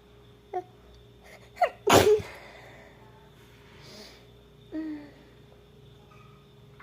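A woman sneezing: two short catching breaths with a rising pitch build up, then one loud sneeze about two seconds in. A short voiced sound follows near the end.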